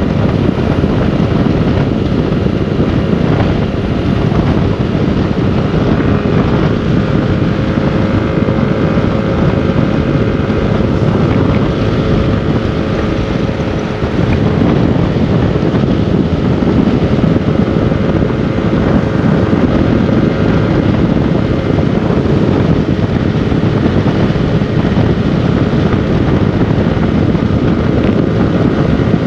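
Motorcycle running steadily at riding speed, with wind rushing over the microphone.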